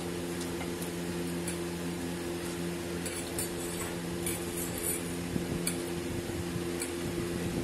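Metal forks clinking and scraping against ceramic plates as two people eat noodles, in scattered light clicks, over a steady hum.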